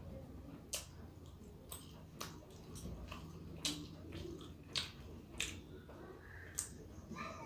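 Eating by hand: chewing with short wet mouth clicks about once a second, and fingers squishing rice and curry on a plate.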